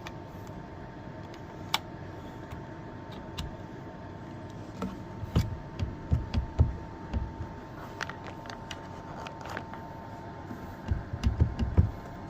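Hands working on the RV dinette's latch hardware: scattered small clicks and taps, with clusters of dull knocks and thumps around the middle and again near the end. A faint steady tone sits underneath and fades out toward the end.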